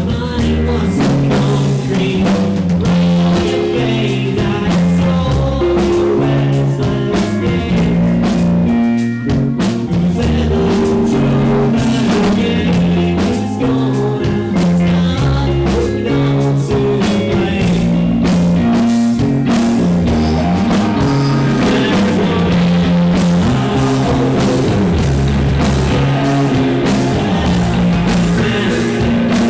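Live three-piece rock band playing a song: distorted electric guitar, electric bass and drum kit, with a male singer. The band drops out for a moment about nine seconds in, then comes back in.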